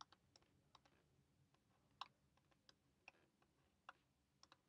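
Faint, irregular taps of a stylus on a tablet screen while numbers are handwritten: about half a dozen short clicks over a few seconds, the clearest one about two seconds in, against near silence.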